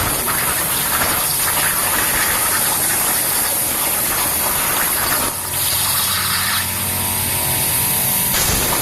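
Steady, loud hiss of a CNC cutting machine at work, its tone shifting briefly about five seconds in and again near the end.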